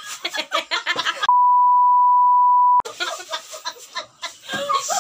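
A steady 1 kHz bleep tone of about a second and a half, edited in so that it blanks out all other sound. Excited voices and laughter come before and after it.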